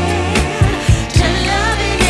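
A pop song with a female singer over a bass line and a steady drum beat.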